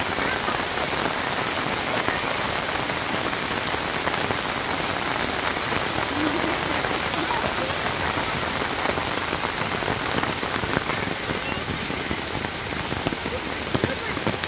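Heavy rain falling steadily onto standing floodwater and a wet road, a dense, even hiss.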